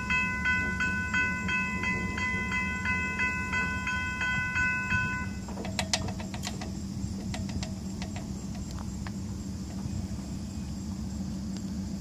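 Railroad grade-crossing bell ringing rapidly over the low, steady rumble of an approaching diesel freight train. The bell stops about five seconds in, leaving the rumble and a few sharp clicks.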